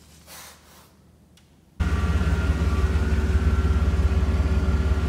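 Faint rustling, then about two seconds in a loud, steady low rumble starts abruptly: a Chevrolet S-10 Blazer's engine running.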